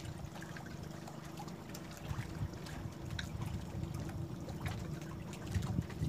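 Choppy reservoir water lapping and slopping against the side of a boat, with a few faint small knocks and a faint steady hum underneath.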